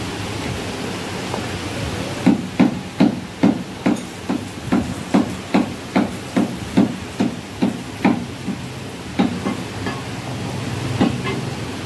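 Butcher's knife chopping mutton on a wooden chopping block: a quick run of dull knocks, about three a second, starting about two seconds in and lasting about six seconds, then a few scattered knocks.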